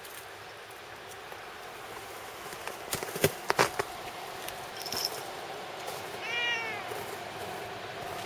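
A domestic cat meows once about six seconds in: a single call just under a second long that rises and then falls in pitch. Shortly after three seconds in there are a few sharp clicks, which are the loudest sounds.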